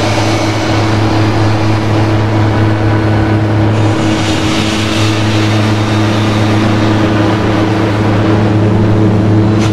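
Harsh noise music: a loud, dense wall of hiss and rumble over a steady low hum, shifting in texture about four seconds in and again near the end.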